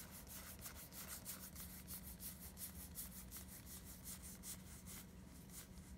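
Trading cards being slid one at a time across a hand-held stack of Magic: The Gathering cards, a soft papery scrape for each card, several a second, thinning out about five seconds in.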